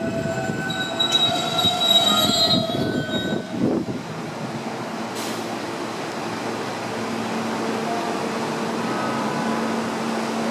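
R160A-1 subway train pulling out of an elevated station, its wheels squealing with several high ringing tones for the first few seconds. The sound then drops to a steady rumble with a low hum as the train moves off.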